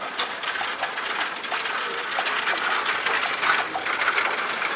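Wooden handcarts with spoked wheels rattling and clattering steadily as they are pushed and pulled along an asphalt road.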